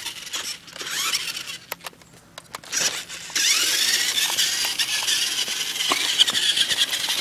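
Small electric motor and gears of a toy RC rock crawler truck whining as it drives. The whine dies away about a second in, leaving a few light clicks, then picks up again with a rising pitch about three and a half seconds in and keeps going.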